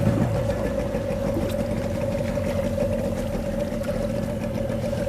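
Fishing boat's engine running steadily at low revs, with a strong, even hum.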